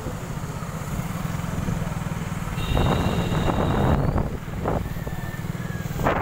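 A motorised two-wheeler being ridden along a road: a steady low engine and road rumble with rushing wind on the microphone, and a high steady tone lasting a little over a second near the middle.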